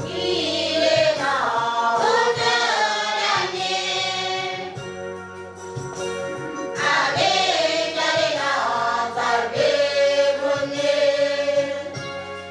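A mixed choir of young women and men singing together in two long phrases, with a short lull about five seconds in.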